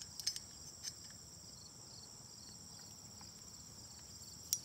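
Steady, high-pitched chirping of insects, with a few faint sharp clicks of the metal wire tightener being handled, the sharpest near the end.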